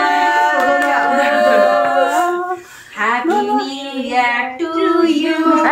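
Female voices singing, holding long notes, with a brief break about halfway through.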